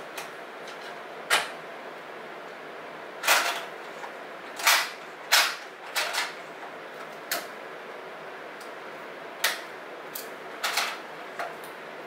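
Plastic desktop tape dispenser being handled as a roll of clear tape is fitted: a string of sharp plastic clicks and short rasping scrapes at irregular intervals, busiest in the first half.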